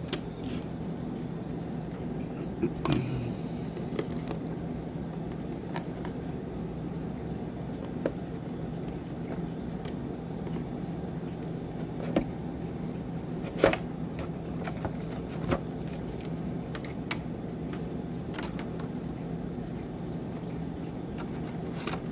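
Handling of a small action camera's plastic accessories and packaging: scattered light clicks and knocks, about ten in all, with the loudest near the middle, over a steady low hum.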